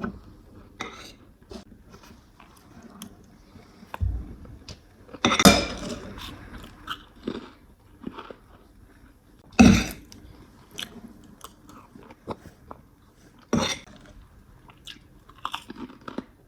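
A person eating: chewing and crunching food that includes kerupuk crackers. There are many small crunches and louder bites or knocks about four, five and a half, ten and fourteen seconds in.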